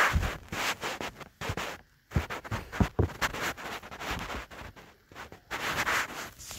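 Bedding fabric rustling and scraping right against the phone's microphone in irregular bursts, with handling noise as the phone is moved under the lifted cover.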